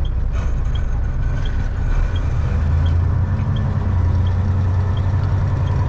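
Semi truck's diesel engine running steadily, heard inside the cab while driving, its low drone growing a little stronger about halfway through. A faint regular tick repeats about once every three-quarters of a second.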